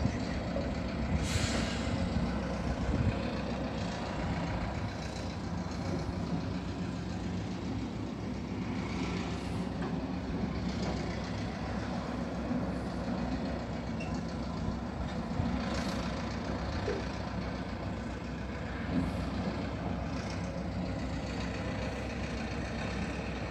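Heavy trucks and machinery running on a construction site: a steady low engine rumble with a few short hisses.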